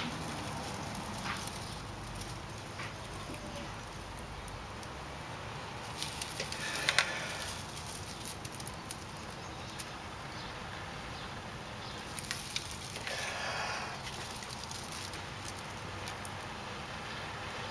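Someone blowing into a smouldering pine-needle tinder bundle to coax an ember into flame: two long rushing breaths, about six seconds apart, with the dry needles crackling and rustling in the hands between them.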